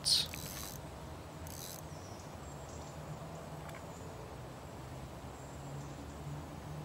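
Quiet riverbank background: a faint, steady low hum under a light hiss, with one short soft hiss about one and a half seconds in.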